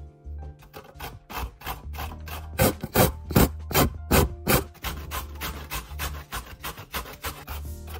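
Raw vegetables being shredded in quick rhythmic rasping strokes, about three a second and loudest in the middle, over background music.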